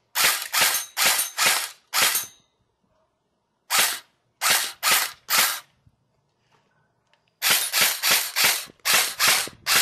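JG M4 airsoft electric gun firing single shots, about twenty sharp cracks in three strings with pauses of a second or two between; the last string is a quick run of about four shots a second.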